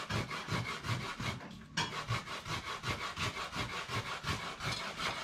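Rhythmic back-and-forth scraping strokes of hand kitchen work, about three a second, with a brief break and a single knock about two seconds in.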